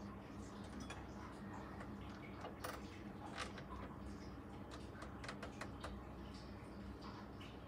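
Faint, irregular clicks of saxophone keys and pads being pressed and released by hand, over a steady low hum.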